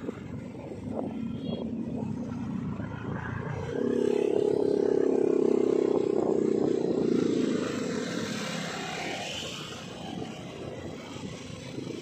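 Engine and road noise while riding in slow traffic among motorcycles and cars; a nearby engine hums louder at a steady pitch for about four seconds in the middle, then fades back into the general rumble.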